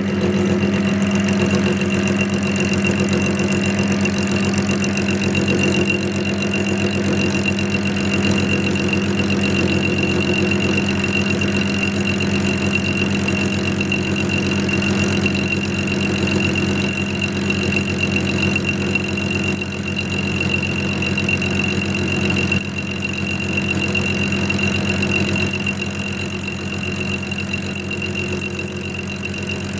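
Clarke CL430 metal-working lathe running steadily at medium speed, about 500 RPM, with a constant hum and a steady high whine, driving a dovetail cutter slowly through a mild steel block.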